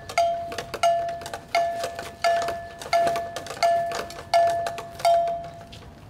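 A bell struck in a slow, steady beat, about eight strikes, each ringing a clear mid-pitched tone with higher overtones that fades before the next strike.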